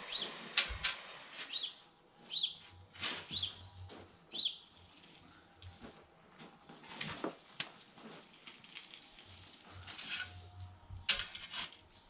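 A garden bird calling with short high notes that drop in pitch, about once a second, for the first four seconds or so. Over it come scattered scrapes and sharp knocks of a spade digging into gravel, the loudest about a second in and about eleven seconds in.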